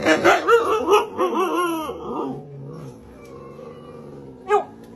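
A group of huskies howling and yowling together, several wavering calls overlapping for the first couple of seconds and then fading. One short yip comes near the end.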